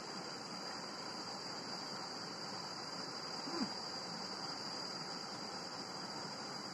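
Steady rush of a shallow river flowing over rocks, with one brief faint falling blip about three and a half seconds in.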